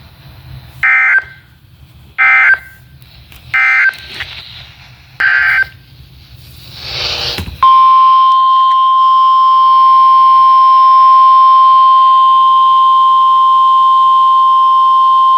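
Emergency alert data tones: four short warbling bursts of SAME digital code, then about seven and a half seconds in the NOAA Weather Radio 1050 Hz warning alarm tone starts, a loud, steady single-pitched tone signalling that a new warning follows.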